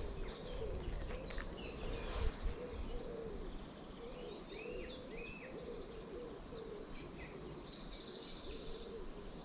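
A low hooting call repeating steadily, with small birds chirping and singing higher up.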